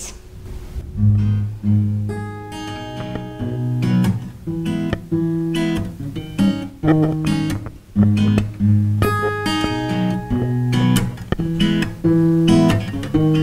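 Acoustic guitar with a capo playing a song's instrumental introduction: strummed and picked chords that change every second or so, starting about a second in.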